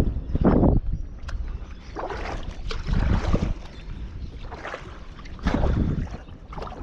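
Kayak paddle dipping and pulling through shallow water, a few strokes a couple of seconds apart with splashing and drips, over wind rumble on the microphone.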